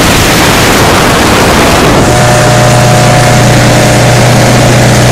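Motorboat engine running steadily under way, with a rush of wind and water over the first two seconds. About two seconds in, the sound changes abruptly to a steady, even engine hum with a clear low pitch.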